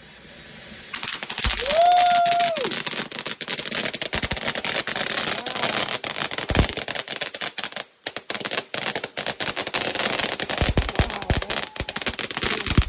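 Ground fountain firework spraying sparks with a dense, continuous crackle of tiny pops, and a few deeper pops among them. A short high tone rises and falls about two seconds in. The crackle drops out briefly about eight seconds in.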